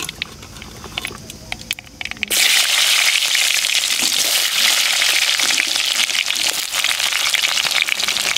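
Mustard seeds crackling sparsely in hot oil in a clay pot. A little over two seconds in, halved shallots are tipped in and the oil breaks into a loud, steady sizzle.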